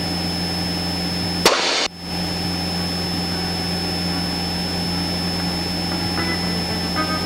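Cessna 172SP's four-cylinder Lycoming engine droning steadily in cruise inside the cockpit. A short burst of hiss about one and a half seconds in cuts off sharply, like a radio's squelch tail.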